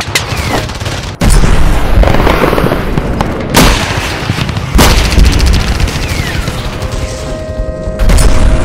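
Battle sound effects layered over intro music: gunfire and four heavy booms with sudden onsets and deep rumble, with short falling whistles between them.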